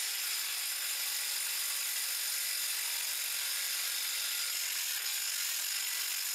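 Power tool grinding stone, running steadily: an even high whine over a grinding hiss.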